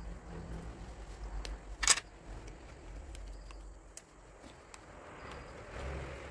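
A kitchen knife cutting and working through a raw whole chicken on a wooden chopping board, with soft wet handling and scraping noises and one sharp click about two seconds in, over a low steady hum.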